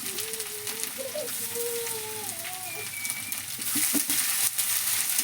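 Onion, garlic and ginger paste sizzling in hot oil in a kadai, with a few sharp clicks of a spoon near the end. The sizzle gets louder toward the end.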